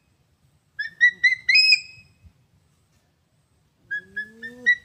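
An eagle calling: a run of four or five shrill whistled notes that step upward in pitch, heard about a second in and again starting near the end.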